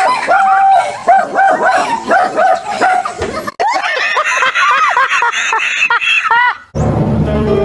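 A dog barking in quick high yips for about three and a half seconds, then an abrupt cut to a man and a woman laughing hard. Music starts near the end.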